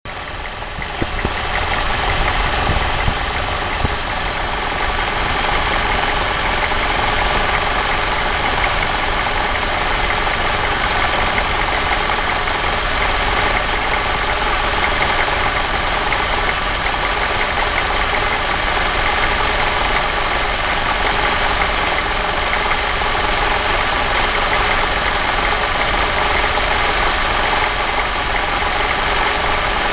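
Mercedes-Benz W124's M111 four-cylinder engine idling steadily, heard at the engine bay, with its accessory belt tensioner fitted with a replacement damper. The level builds over the first second or two, then holds even.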